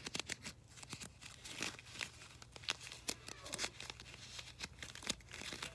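Packaging crinkling and rustling as gift items are handled, a run of irregular small crackles and clicks.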